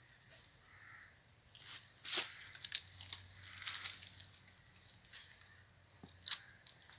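Dry leaf litter and twigs crackling and rustling in short irregular bursts as hands move a snake about on the ground, the loudest crackles about two seconds in and again near the end.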